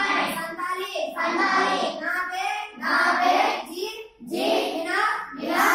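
Children's voices reciting phrases aloud in a sing-song chant, in short phrases of about a second with brief pauses between them.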